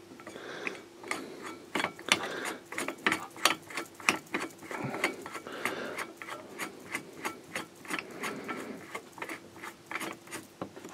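Small homemade tenon jig being handled and adjusted: a quick, irregular run of light mechanical clicks and knocks, several a second.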